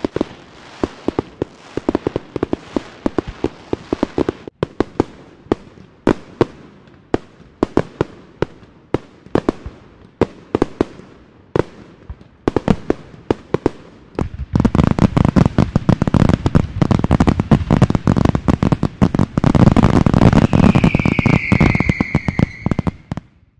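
New Year's fireworks and firecrackers: separate sharp bangs and cracks at irregular intervals. From about 14 seconds in they turn into a dense, unbroken crackling of firecrackers. Near the end a high whistle slides slightly down in pitch, then the sound cuts off suddenly.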